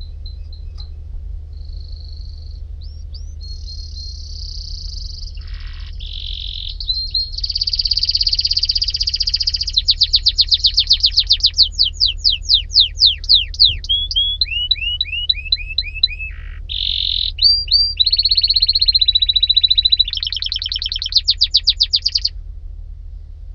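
Domestic canary singing one long, loud song made of tours: rapid trills and fast series of repeated sweeping notes, switching to a new type every second or two, stopping shortly before the end. A steady low hum runs underneath.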